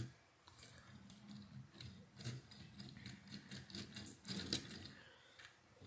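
Plastic wheels and side rods of a Lego 4-6-0 steam locomotive model clicking and rattling faintly as it is pushed by hand across a stone countertop, with a few louder clacks about two seconds in and again near the end.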